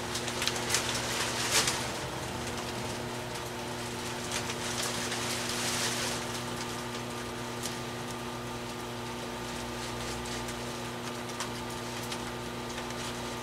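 Skutt Prodigy electric potter's wheel running with a steady motor hum, under the wet swishing and small clicks of hands and a rib smoothing the spinning porcelain clay.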